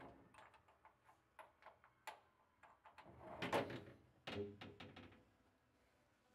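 Small metal clicks and knocks as shelf hooks and a heavy metal shelf are shifted and reseated inside a garage cabinet, the shelf sitting one hook position off. Irregular taps, with a louder cluster of knocks about halfway through.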